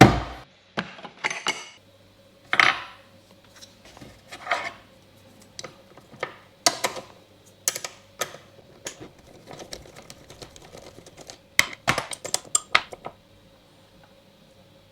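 A broken wheel being taken apart by hand: irregular clicks, taps and short scrapes of its hub parts, with a quick run of sharp clicks near the end.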